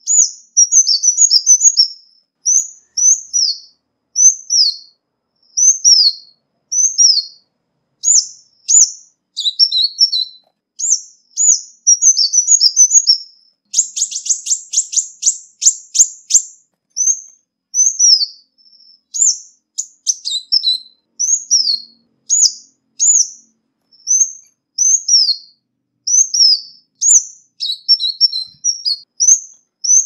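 Ruby-cheeked sunbird (Chalcoparia singalensis) calling: a string of short, high, thin down-slurred notes, some run together in quick twittering clusters. About halfway through comes a fast run of about a dozen sharp notes lasting some two seconds. There is no background noise.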